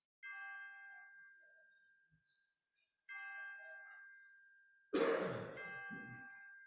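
A bell tolled slowly, the same single note struck about every two and a half to three seconds, each strike ringing out and fading. A loud cough breaks in about five seconds in.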